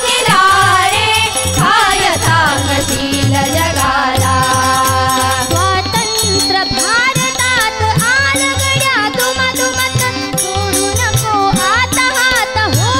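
Women's group singing a Marathi devotional bhajan in unison, the lead voice and chorus carrying the melody over harmonium, a steady hand-drum beat and the jingling of khanjiri tambourines.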